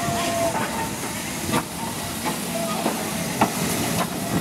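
Steam locomotive NER 1310, a small 0-4-0 tank engine, hissing steam as it runs slowly past, with a few sharp clicks from the engine and track.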